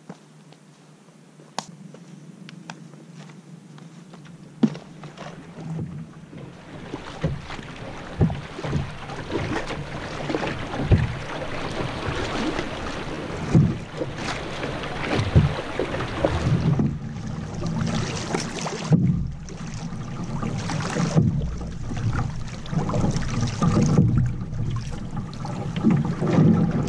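Fast river water rushing and splashing past a canoe running a rapid, with wind on the microphone and scattered knocks. The water noise builds up over the first several seconds, after a quieter start with a few clicks.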